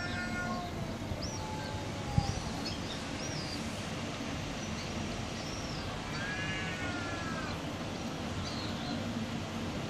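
Cat yowling: a long, drawn-out moan at the start and another wavering yowl about six seconds in, the warning calls of cats squaring up to fight. Small birds chirp in the first few seconds.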